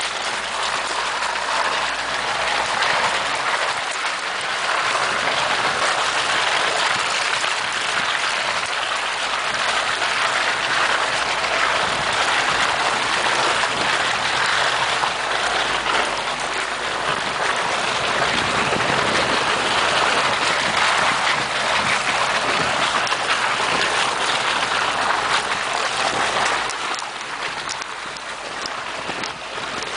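Suzuki SJ410 4x4 driving slowly through snowy, muddy ruts: a steady rushing hiss of wind and tyres in the slush, with the small engine faint underneath. It eases off briefly near the end.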